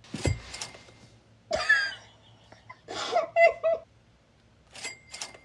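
A woman coughing and clearing her throat in a few short bursts, with a couple of sharp clicks near the end.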